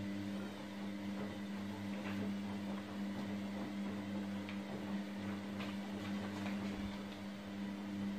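Steady low electrical hum in a small room, with a few faint clicks.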